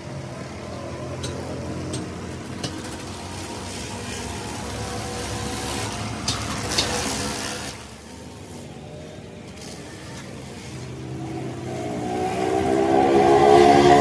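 A motor engine running steadily, with a few light knocks. Near the end an engine grows louder and rises in pitch.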